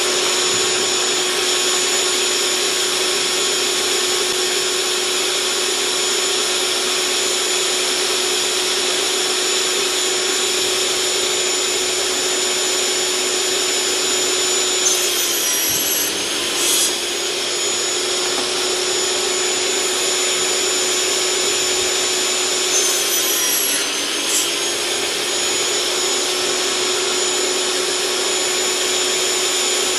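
Portable table saw running at full speed, with a steady high motor whine, while PVC boards are cut. Twice, about halfway through and again near three quarters, the whine briefly drops in pitch as the blade loads up in a board, then recovers.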